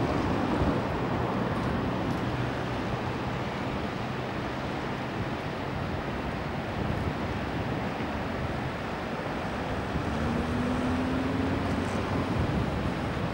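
Wind rushing over a camcorder microphone at the riverside, over a steady low engine hum. Near the end a faint tone rises slowly for about two seconds.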